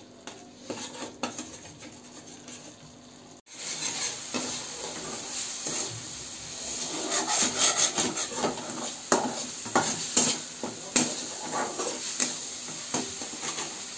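Metal spatula stirring and scraping onion-garlic-chili paste around a kadhai, with a frying sizzle, the paste being fried until the oil separates. Quieter at first, with many small scrapes and clicks against the pan from about four seconds in.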